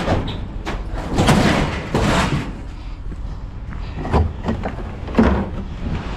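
A string of loud bangs and thuds at uneven intervals, about seven in all, the loudest near the start, each with a brief ringing tail.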